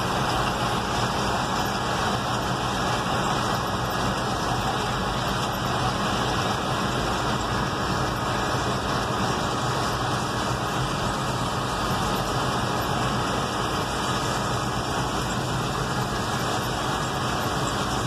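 Steady engine and machinery noise with a low hum: a Massey Ferguson 850 combine harvester's diesel engine running while it harvests soybeans, heard from inside a vehicle.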